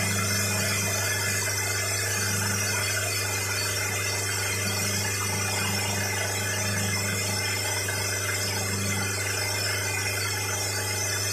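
Wooden boat's engine running steadily under way at cruising speed: a constant drone with a high whining tone, over the rush of the bow wake.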